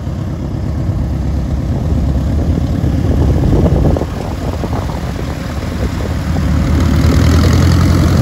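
Light single-engine propeller airplane taxiing past with its piston engine at idle. The engine note is steady and gets louder in the last couple of seconds as the airplane rolls close by.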